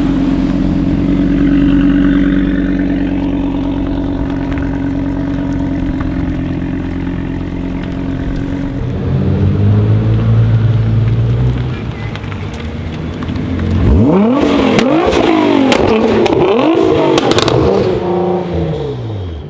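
Audi RS3 8V Sportback's turbocharged five-cylinder engine running at a steady pitch for about nine seconds, then briefly at a lower steady note. From about two-thirds of the way in it revs up sharply several times, with exhaust crackles, and the pitch falls away near the end.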